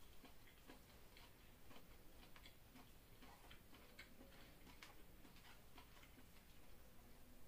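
Near silence: faint room tone with soft, irregular light clicks, several a second.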